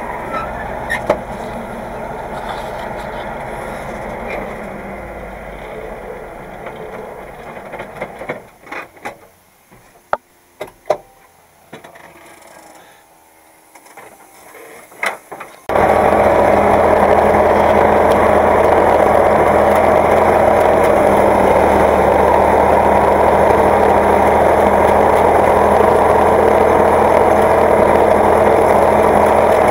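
Tractor diesel engine running and fading away over the first several seconds, then a quiet spell with a few sharp knocks and clicks. About halfway through, a tractor diesel engine suddenly runs loud and steady, heard from inside the cab.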